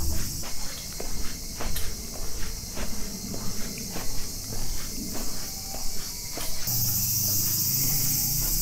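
Footsteps of a person walking on a paved street, about two steps a second, over a steady high-pitched chorus of insects. About two-thirds of the way through, the steps fade and the insect chorus becomes louder.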